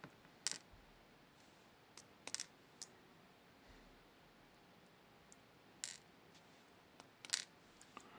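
Scattered light metallic clicks as the small pins and parts of a disassembled Miwa Kaba Star dimple lock are handled, about eight clicks, some in quick pairs.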